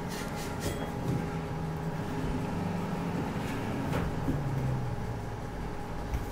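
A steady low rumble with a faint hum, and a few light knocks and clatters of drain hose and plumbing fittings being handled: some right at the start, one about four seconds in and one near the end.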